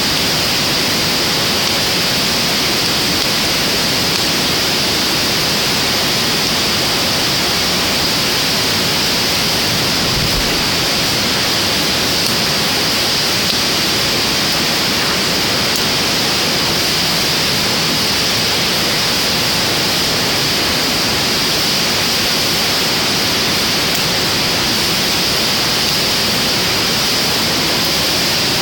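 Steady loud rushing hiss without any rise or fall, with a few faint crackles from a wood fire burning in a steel fire pit.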